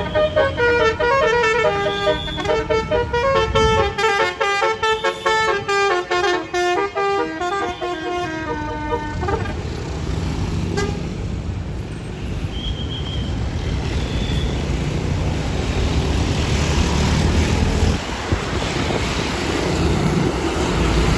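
A bus's basuri telolet multi-tone air horn plays a stepping melody for about nine seconds, then stops abruptly. After that the bus's engine and road noise carry on, growing louder near the end.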